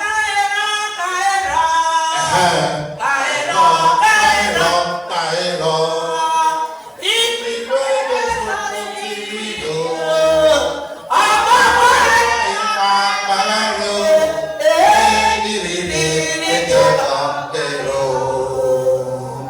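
A group of voices singing a song together, choir-style, with held and gliding notes.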